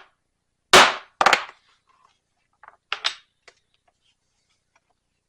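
Two hard mallet blows on a leather-cutting punch, half a second apart, each sharp with a short ring, cutting through the belt strap. A few lighter knocks follow about three seconds in.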